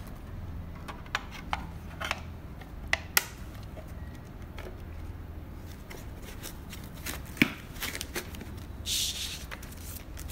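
Parts of a switch panel kit being packed back into their box by hand: scattered clicks and taps, the loudest about two-thirds of the way in, and a short rustle near the end.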